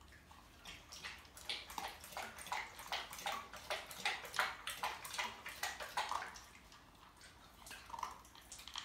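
Great Dane lapping water from a stainless steel bowl in quick, irregular splashy laps for about five seconds. The laps fade about two-thirds of the way in, and a few more come near the end.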